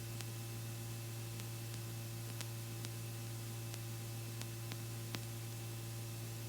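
Faint steady low hum under an even hiss, with a dozen or so faint, irregular clicks: electrical line noise on a cockpit audio feed while nobody is talking.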